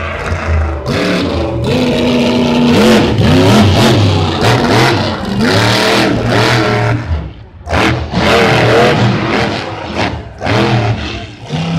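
Monster truck engine revving hard, its pitch rising and falling over and over, with a brief drop in power near the middle.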